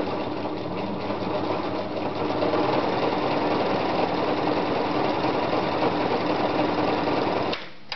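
Privileg Voll-Zickzack Superleicht 360 sewing machine running steadily as it stitches a narrow, close zigzag for a buttonhole. It gets a little louder about two seconds in and stops suddenly about seven and a half seconds in.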